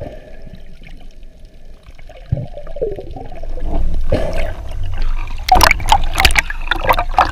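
Muffled underwater water noise as a diver swims, growing louder about four seconds in, then sharp splashing and sloshing as the camera breaks the surface near the end.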